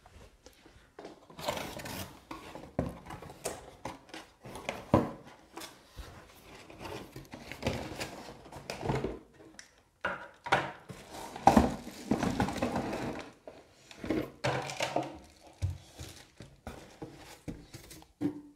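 Unboxing sounds: a cardboard box being opened and handled, plastic packaging rustling and crinkling, and knocks as the wrapped blender and a plastic insert are set down on a table. The sounds are irregular, starting about a second in, with the loudest knocks about five and eleven and a half seconds in.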